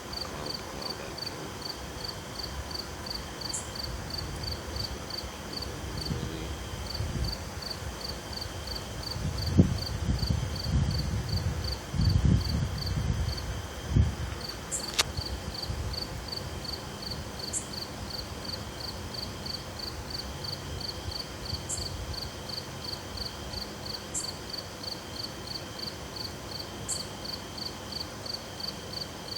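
Night insects, crickets among them, chirping steadily: an even pulsing of about three chirps a second, a steady higher trill, and a brief high chirp every few seconds. A low rumble swells in the middle for several seconds, and a single sharp click follows.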